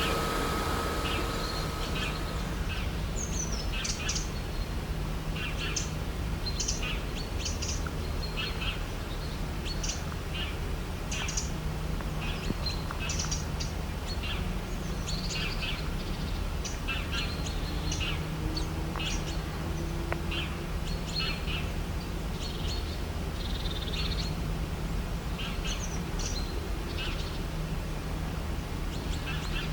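Many birds chirping and calling in short, scattered notes, over a low steady background rumble.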